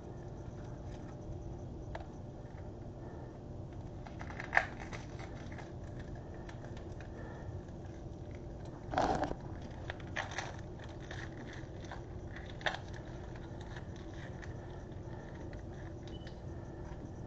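Faint steady crackle of chopped onions frying in melted butter in a pan, with a sharp knock about four seconds in, a short clatter about nine seconds in and a few lighter knocks after it, from handling things on the kitchen counter.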